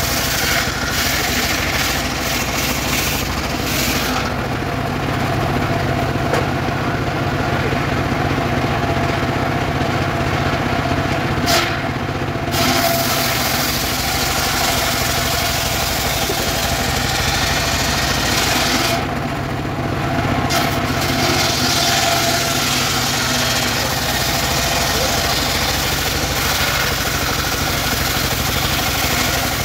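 Engine-driven mobile circular sawmill running steadily, its large blade ripping a weru (Albizia) log into boards. The engine drone is constant while the hissing sawing noise eases off a couple of times, briefly, as the log is drawn back and repositioned for the next pass.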